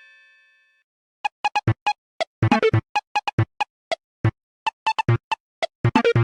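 Siemens Xelibri 5 polyphonic ringtones: the ringing tail of one tune fades out, and about a second in a new synthesizer tune starts, made of short, clipped notes in a quick, uneven rhythm.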